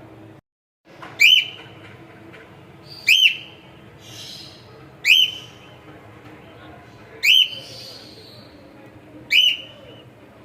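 Cockatiel whistling: five loud, short rising whistles, about one every two seconds.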